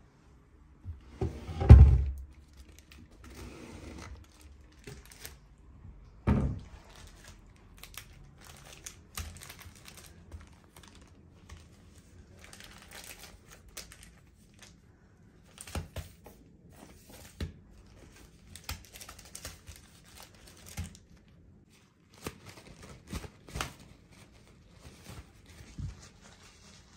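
Two heavy thumps near the start, then the crinkling of a plastic-wrapped packet being handled, with light taps and clicks as it is set down on a sink counter.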